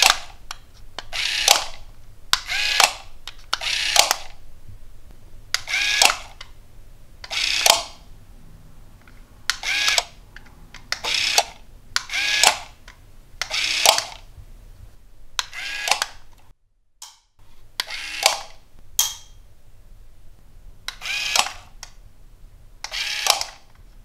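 Small plastic geared DC motor (toy-car type) whirring in short bursts about every one to two seconds, over a dozen times, each burst swinging a wire lever that flips a wall light rocker switch.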